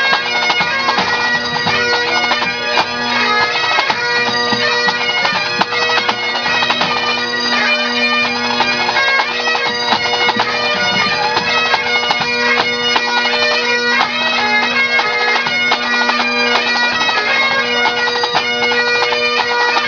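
Pipe band playing: Great Highland bagpipes sounding a steady drone under the chanter melody, with snare drums beating along throughout.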